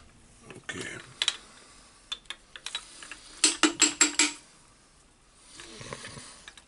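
Greasy metal parts of a Hilti TE1000-AVR demolition hammer's percussion assembly clicking and clinking in the hands as the striker is worked out of its housing, with a quick run of sharp clinks about three and a half seconds in.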